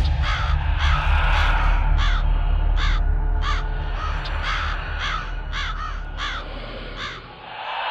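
Crows cawing again and again, about a dozen harsh calls roughly half a second apart, over a deep low rumble that fades out near the end.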